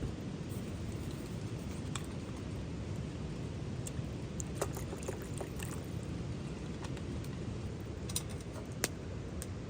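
Campfire of wet branches burning, with irregular sharp crackles and pops over a steady low rushing noise.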